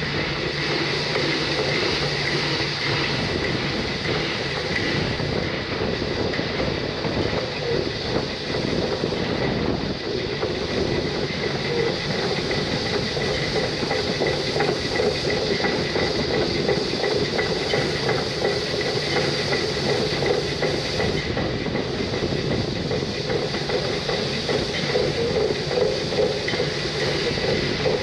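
Narrow-gauge (2 ft 6 in) steam train running steadily along the track, with continuous wheel-on-rail clatter and running noise.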